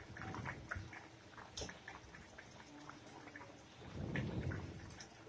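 Mustard fish curry (besara) simmering in a steel pan, its bubbles popping in many small scattered clicks. About four seconds in, a spatula stirs through the gravy with a brief low swell of sloshing and scraping.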